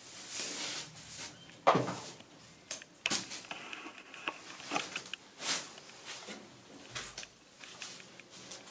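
Paper cracker tubes and plastic hexagonal chakra wheel frames handled and fitted together by hand: scattered light clicks, knocks and rustles, with a sharp knock just under two seconds in.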